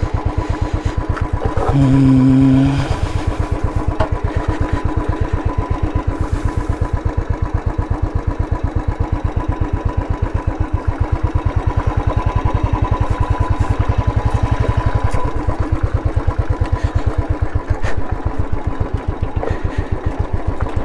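Royal Enfield Classic 350's single-cylinder engine thumping at low revs with an even beat of several pulses a second, as the bike rolls slowly over gravel. A brief steady tone sounds about two seconds in.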